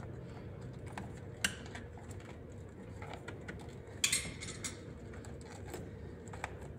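Scattered light clicks and knocks of a car steering wheel and hand tools being handled as the wheel is worked off its column. There is a sharp click about a second and a half in and a brief rattling clatter about four seconds in.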